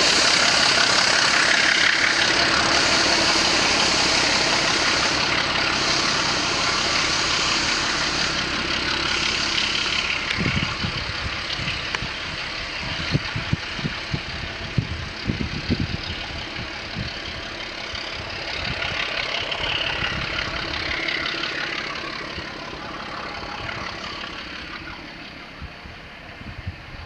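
Diesel locomotive engines working as the train pulls away, led by the rear pusher, T466.0007 'Pielstick', which is nearest. The running sound fades steadily as the train recedes into the distance.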